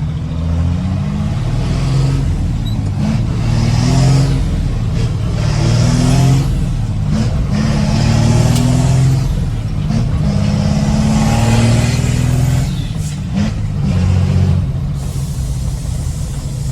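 Ford Cargo dump truck's diesel engine pulling through town, heard through the cab's part-open window. Its pitch climbs and drops back several times as the gears change.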